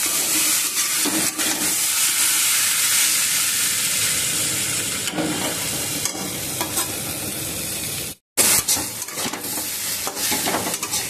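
Sliced okra and potato sizzling as they fry in an uncovered steel kadhai, nearly done, stirred with a spatula that scrapes and knocks against the pan. The sound cuts out completely for a moment about eight seconds in.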